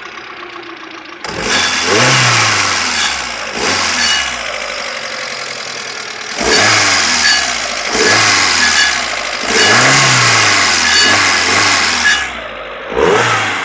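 2004 Kia Picanto's petrol engine idling, then revved from idle about six times, each rev rising and falling in pitch, with a harsh noisy edge over the engine note as it revs. This is the strange noise the car makes under throttle, its cause unknown to the owner.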